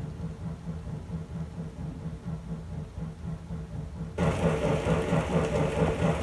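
Kato N-scale model passenger train running on layout track: a steady rhythmic clatter of the wheels with motor whir. It suddenly gets louder about four seconds in.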